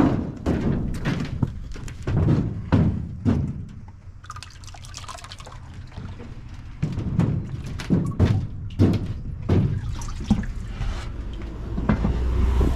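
A series of dull thunks with liquid sloshing and pouring, over a steady low hum.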